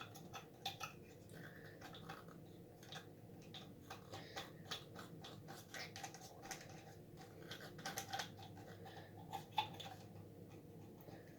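Faint, irregular scratching and clicking of a small scrubber being worked against the plastic case of an Aquapets toy to scrape out grime.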